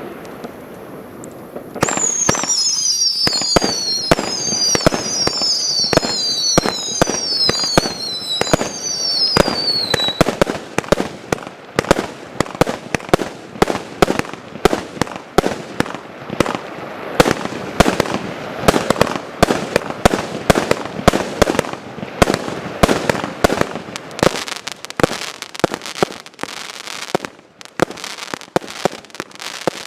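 Klasek consumer fireworks going off: a fast barrage of sharp bangs and crackles, with a string of whistles that each fall in pitch, about one a second, over the first third. The bangs thin out near the end.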